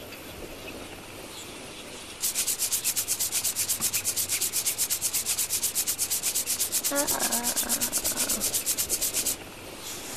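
Rapid, evenly repeated rasping strokes, about six a second. They start about two seconds in and cut off abruptly near the end. This is a cartoon sound effect of fingers rubbing against something rough, which is then called "a treat for the fingers".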